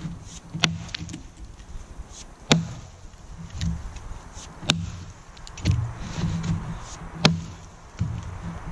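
Gränsfors Bruk axe chopping into a log: four sharp strikes about two seconds apart.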